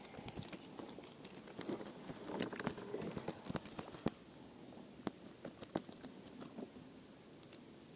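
Irregular light clicks and taps with soft rustling, as of things being handled close by; they are busiest in the first few seconds and thin out to a few scattered clicks.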